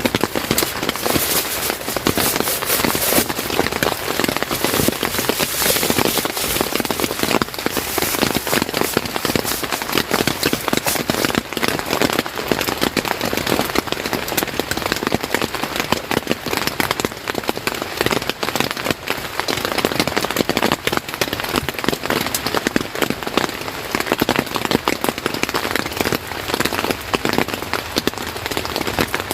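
Steady rain falling: an even hiss made of countless small drop impacts, with no let-up.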